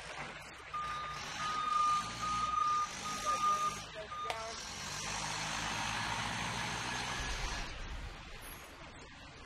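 Crown LPG forklift's reversing beeper sounding in several long, steady high beeps over its running engine, then the engine revving up with a loud rushing noise for a few seconds before easing off near the end.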